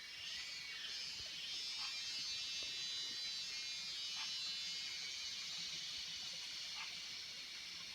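Insects trilling in a steady, high, buzzing chorus, with a short lower call repeating about every two and a half seconds.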